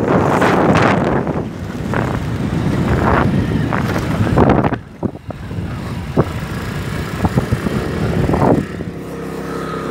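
Wind rushing over a phone microphone on a moving motorcycle, with the engine running underneath and a few sharp knocks. Near the end the wind noise drops and the motorcycle engine's steady hum comes through plainly.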